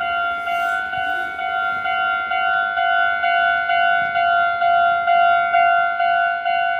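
Japanese railway level crossing warning bell (fumikiri alarm) ringing in a steady repeating ding, about two rings a second, signalling that a train is approaching and the barriers are down.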